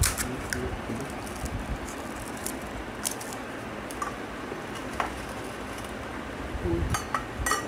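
Scattered small clicks and crackles of crisp golgappa (pani puri) shells being cracked open and dunked into spiced water, over steady background noise. A quick run of clicks comes near the end.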